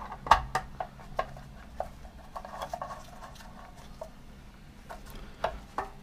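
Scattered light clicks and taps of hands handling the jet pump's pressure switch cover and its fittings, with a few sharper knocks near the start and another pair about five and a half seconds in.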